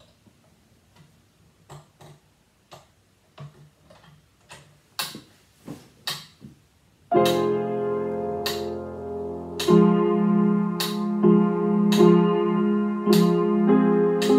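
Grand piano: several seconds of soft, scattered clicks and taps, then loud sustained chords from about seven seconds in, re-struck roughly once a second.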